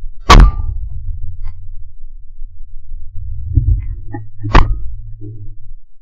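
A shotgun shot at a flying clay target about a third of a second in, very loud and sharp. A few light clicks follow, then a second loud crack about four and a half seconds in, with low wind rumble on the barrel-mounted microphone underneath.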